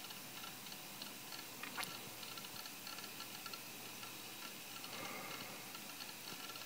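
Faint, quick, irregular clicking from the Apple PowerBook 1400c's hard drive seeking as Mac OS starts up, with one sharper click about two seconds in.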